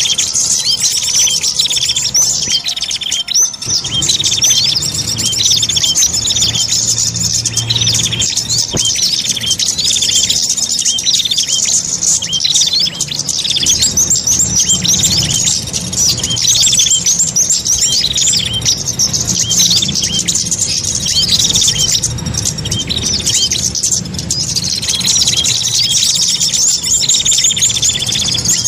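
A dense mix of small songbird calls: many rapid, high-pitched chirps and trills repeating without pause, layered as in a bird-luring (pikat) recording made to draw in small birds such as prinias (prenjak).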